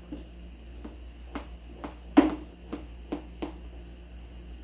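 A table knife tapping and scraping against a round aluminium baking pan while cutting and lifting out a piece of cake: a series of short sharp clicks, the loudest a little past halfway.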